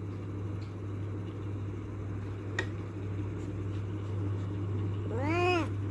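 A steady low hum with a single faint click a little past halfway; near the end a domestic cat gives one meow that rises and falls in pitch, demanding to be let out through the door.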